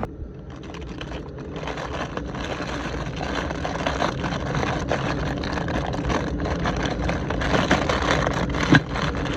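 A torpedo heater running with a steady rushing hum, growing louder over the first few seconds and then holding even.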